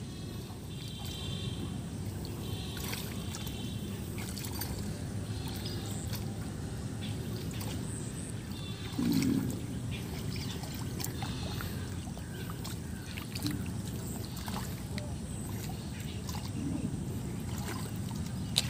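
Hands working in shallow, muddy paddy-field water, with soft sloshing and small splashes as grass and weeds are pulled out of the mud. A brief, louder low sound comes about halfway through.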